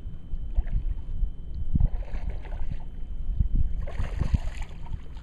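A hooked bass splashing at the water's surface beside the boat: a splash about two seconds in and a louder one about four seconds in, over a low rumble.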